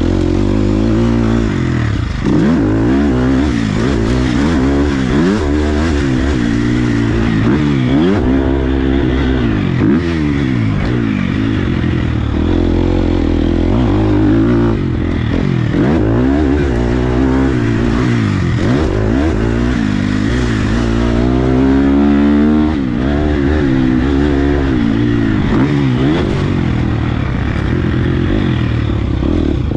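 2021 Husqvarna FC 250 motocross bike's single-cylinder four-stroke engine revving up and shutting off over and over as it is ridden hard, its pitch climbing and dropping every second or two. A long rising rev builds about three quarters of the way through, then falls away.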